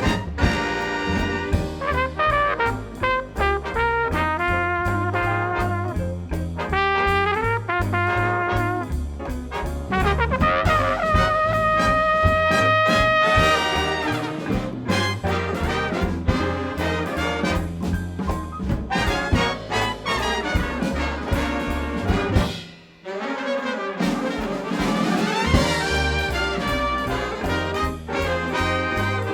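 Live big band jazz: trumpet and trombone sections playing sustained lines over a steady rhythm-section pulse. The band stops for a moment about three quarters of the way through, then comes back in.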